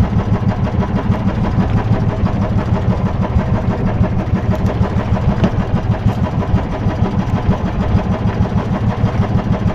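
Small engine idling steadily, with a fast, even throb.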